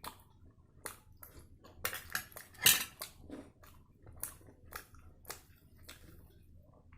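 Cutlery clinking and scraping against a dish during a meal: a string of short, sharp clicks, the loudest about two and a half seconds in.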